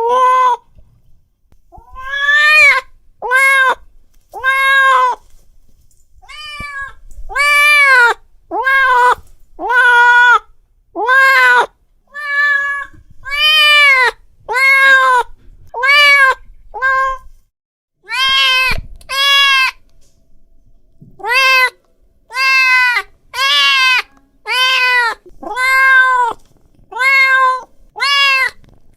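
Domestic cat meowing over and over, about one meow a second, each short call rising and then falling in pitch. The uploader presents it as an angry cat's call meant to make other cats come.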